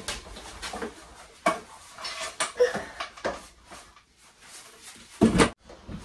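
Irregular knocks, clicks and light clatter of a wooden rack frame and hand tools being handled against a wall, with a louder thump about five seconds in.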